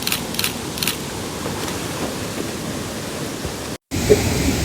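Steady rush of flowing water from a waterfall or stream, with three short crisp noises in the first second. A brief dropout near the end, after which the water is louder.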